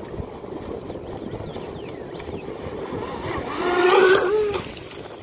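Shallow water lapping with wind hiss, then about three seconds in the high motor whine of a Vector SR80 Pro brushless electric RC speedboat rises close by with hissing spray. It is loudest about four seconds in and cuts off quickly about half a second later.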